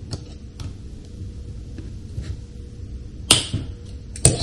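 Small plastic parts and pliers clicking faintly, then two sharp snaps about a second apart near the end, as a tight plastic ball link is forced onto a metal swashplate ball with ball link pliers.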